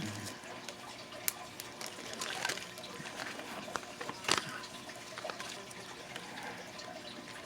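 Small handling noises: scattered light clicks and rustles as jewelry is moved about, with one sharper click a little past four seconds in.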